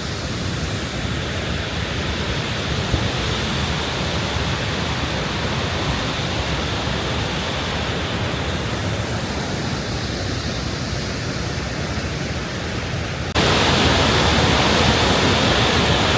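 Steady rushing of a large waterfall, the tallest in North Africa, with no tone or rhythm in it; it gets suddenly louder about 13 seconds in.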